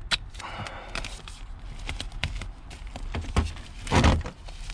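Hand-handling noise inside a car interior while pressing Gorilla Tape onto interior pieces: scattered light clicks and taps, a short rustle near the start, and a louder scraping rustle about four seconds in.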